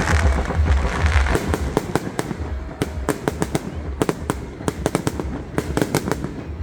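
Aerial fireworks bursting: a dense rumble of bangs for about the first second and a half, then many rapid, sharp crackling pops.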